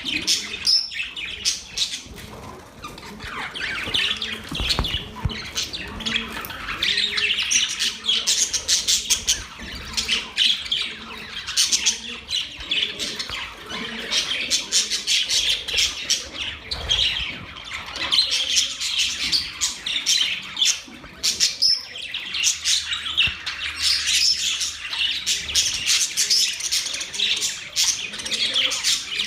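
Budgerigars chirping and chattering continuously, a dense warbling of many short high calls, with frequent short clicks mixed in.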